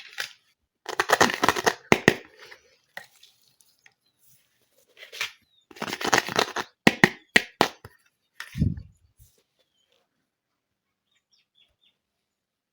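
Small plastic toy play-set pieces and packaging being handled: two runs of rustling and sharp clicks, then a single dull thump.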